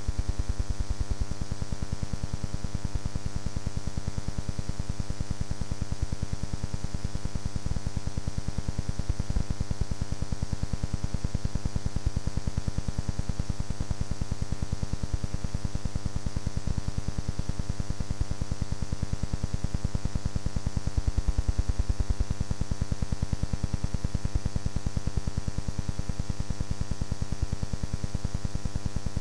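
A steady electrical buzz and hum, its pitch and level unchanging, with no race or engine sound on top of it.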